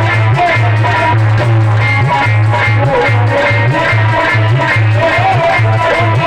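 Music from a Hindi devotional song (bhajan), apparently an instrumental passage: a deep bass line pulsing in a steady rhythm under a wandering melody.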